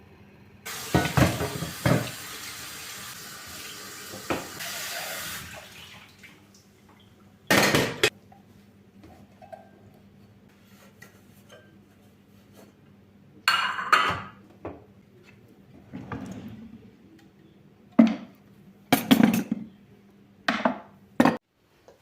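Water running from a kitchen tap for about five seconds, with dishes clattering under it. After that come scattered knocks and clinks of dishes and utensils being handled and set down.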